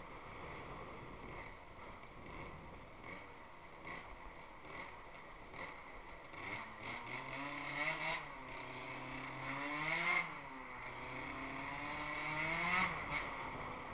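Piaggio NRG scooter's two-stroke engine on the road, its first miles on a new piston ring. At first there is mostly road and wind noise. From about halfway the engine rises in pitch three times as it is revved, and each climb drops off sharply.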